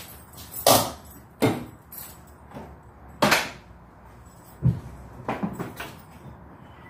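A series of sharp clunks and knocks at the driver's door of a Honda Del Sol as the door is opened and someone climbs in, with a light jangle of keys; the engine is not yet running.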